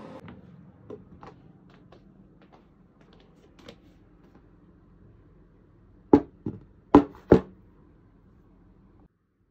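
Quiet room with a few faint clicks, then four sharp knocks in quick succession about six to seven and a half seconds in, the first, third and fourth the loudest, like hard dishware being handled. The sound cuts out shortly before the end.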